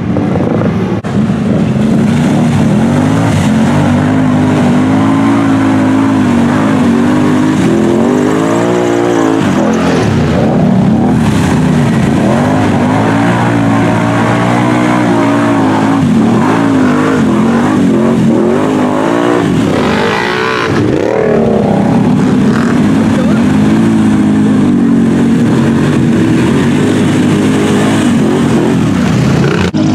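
ATV engines revving hard as the quads churn through a mud pit, the pitch repeatedly rising and falling with the throttle. It is loud throughout.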